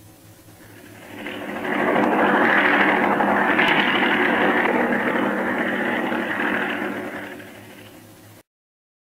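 Propeller airplane engine droning, swelling up about a second in, loudest in the middle, then fading before it cuts off abruptly near the end, over a faint steady hum from an old film soundtrack.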